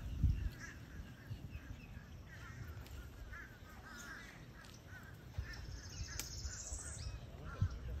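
Wild birds calling: many short calls repeat throughout, and a high trill comes in about five and a half seconds in and lasts over a second. A low rumble on the microphone runs underneath.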